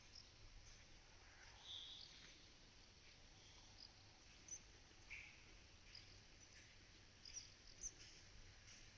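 Near silence broken by faint, scattered short chirps of small birds, a handful of brief high calls spread across the seconds.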